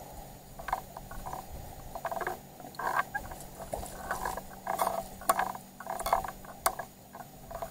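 Casting reel clicking and ticking irregularly as it is cranked under a heavy load, a big catfish fighting on the line.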